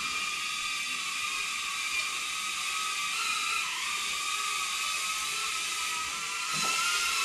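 BetaFPV Cetus Pro FPV drone in flight, its small motors and propellers giving a steady high-pitched whine. The pitch dips and rises slightly with the throttle, and it gets louder near the end.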